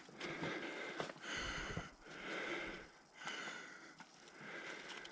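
A man breathing hard, about one heavy breath a second, winded from a steep uphill hike.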